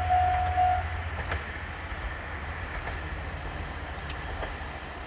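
Japanese level-crossing warning bell ringing in quick repeated strokes, then cutting off under a second in as the train clears. The train keeps rumbling low and steady, with a few wheel clicks over rail joints, growing quieter.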